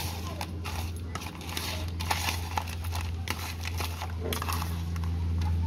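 A metal fork scraping and clicking against a plastic bowl while it stirs crayfish (janga), the hard shells rustling and clicking against one another in quick irregular strokes, over a steady low hum.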